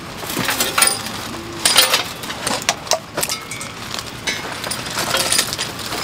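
Steel parts of a folding camping fire pit clinking and clattering as it is unfolded and assembled by hand, an irregular run of metallic knocks, loudest about two seconds in.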